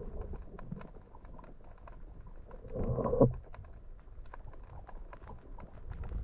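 Underwater ambience: a steady crackle of scattered sharp clicks, with a brief louder rush of noise about three seconds in.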